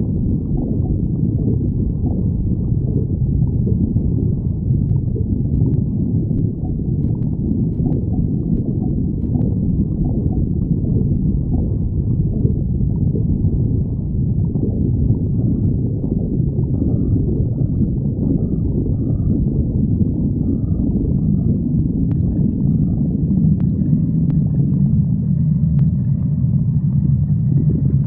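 A person's stomach growling: a continuous low rumble.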